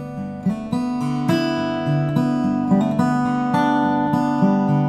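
Background music: an acoustic guitar playing a steady run of plucked and strummed notes.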